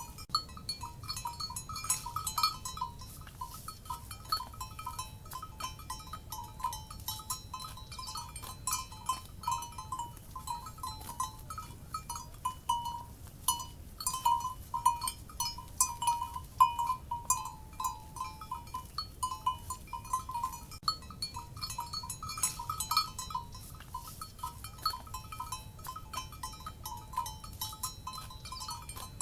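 Cowbells on grazing livestock clanking continuously and irregularly, several bells ringing at once around the same pitch, over a faint steady low background noise.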